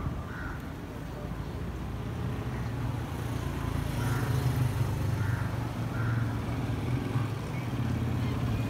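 A motor vehicle engine running steadily, getting louder from about three seconds in.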